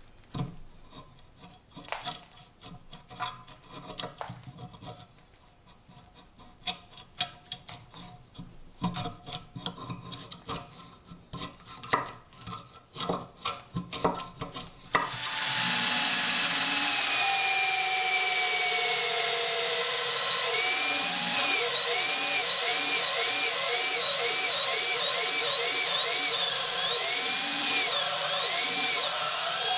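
A thin steel pick scraping and prying crusty rust out of the socket of a rusted WW1 Mosin–Nagant bayonet, in irregular scrapes and clicks. About halfway through, a power drill spinning a twisted-wire brush inside the socket starts up: a loud, steady whine whose pitch dips and recovers about twice a second as the brush bites into the rust.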